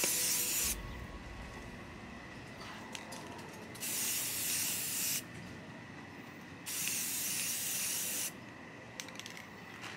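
Aerosol spray paint can spraying in short bursts. One burst cuts off just under a second in, and two more of about a second and a half each come around four and seven seconds in.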